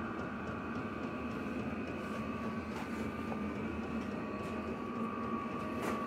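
Chinese diesel air heater running steadily at full burn: an even blower hum with a thin, constant high whine.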